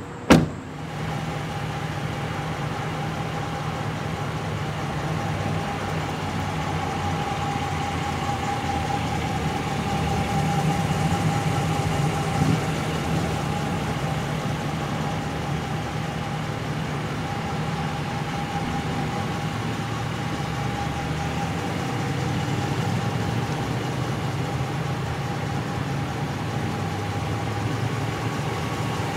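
A pickup truck's engine idling steadily, with a steady whine over its low hum. A door is shut with a single thump just at the start.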